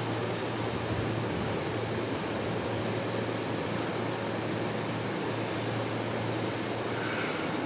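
Steady even hiss with a low hum underneath, the continuous noise of a running machine such as a fan.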